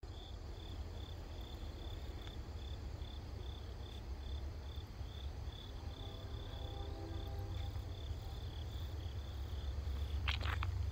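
A cricket chirping in a steady rhythm, about three high chirps a second, over a low rumble that grows a little toward the end.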